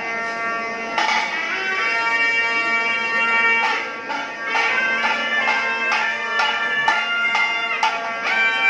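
Temple procession music: a shrill reed pipe plays a melody over a steady drone, starting about a second in. Regular percussion strokes join about three and a half seconds in.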